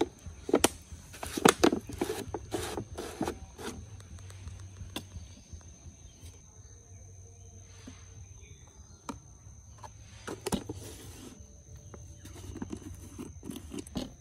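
Handling sounds of a plastic jar lid being unscrewed and a spoon scooping from the jar and tapping against a drinking glass: sharp clicks and knocks in clusters, the loudest in the first few seconds, more about ten seconds in and near the end.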